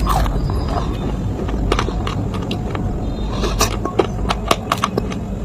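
Sharp, irregular crunches and clicks of clay and slate pieces being crushed, thickest toward the end, over a steady low rumble.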